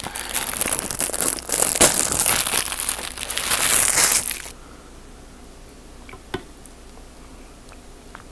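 A white wrapper being crumpled and crinkled close to the microphone, a loud crackling that stops about four and a half seconds in. A single faint click follows about two seconds later.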